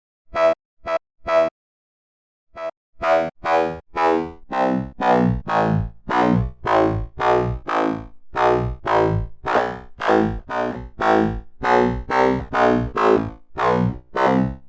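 FM synthesizer bass patch in Sytrus, run through a band-pass filter, played as separate notes: three short stabs, a pause of about a second, then a steady run of notes at about two to three a second.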